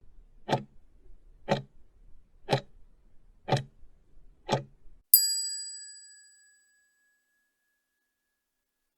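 Quiz countdown-timer sound effect: five clock ticks, one a second, then a single bell ding that rings out and dies away over about a second and a half.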